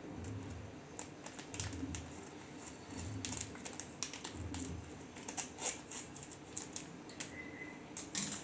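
Scissors snipping through a plastic popcorn packet: a run of small, irregular crisp clicks and crinkles, more frequent in the second half.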